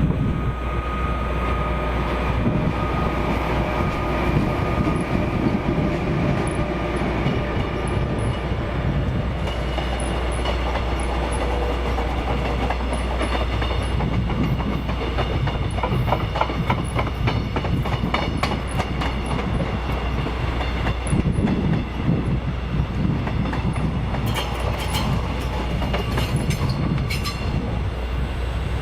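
Train rolling along the track: a steady rumble, with wheels clacking over rail joints in runs of clicks in the second half.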